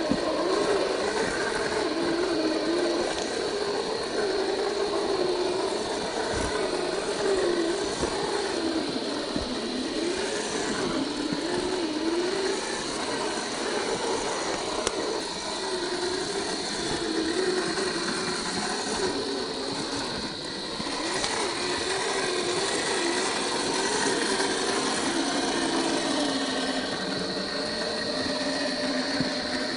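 Electric drive motor and steel gears of a 1/10-scale RC rock crawler whining as it drives, the pitch rising and falling with throttle and load, over a steady high whine.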